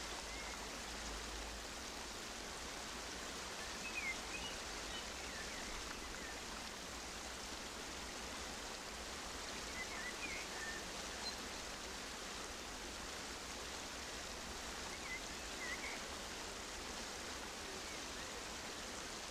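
Steady rushing of running water, with a few faint high chirps over it.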